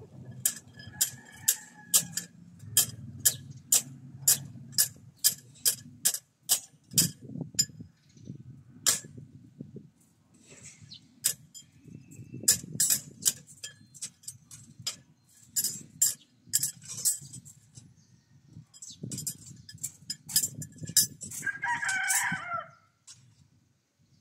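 Runs of sharp clicks, about two to three a second, from hands working the steel reinforcing bar of a tie beam. A rooster crows once near the end.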